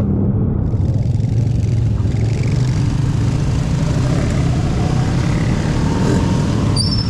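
A motor vehicle engine running steadily, a low even hum with no change in speed.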